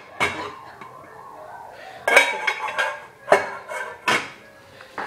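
Dishes and cutlery clattering and clinking as they are handled on a kitchen counter: one knock just after the start, a burst of clattering about two seconds in, then a few separate knocks.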